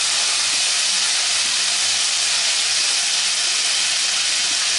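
Wet ginger and chilli paste sizzling steadily in hot mustard oil in a frying pan as it is stirred with a spatula.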